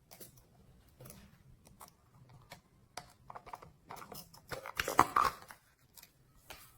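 Slime being squished and kneaded by hand: a run of sticky clicks and crackles, thickest and loudest about five seconds in.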